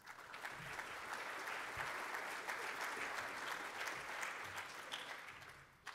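Audience applauding: many hands clapping, building within the first half second and dying away near the end.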